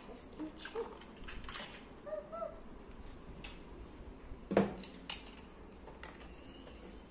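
Hard plastic Paw Patrol toys, a toy garage and small vehicles, clicking and knocking together as they are handled, with one louder knock a little past halfway.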